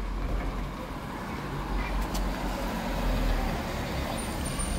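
Street traffic noise: a steady low rumble of road vehicles.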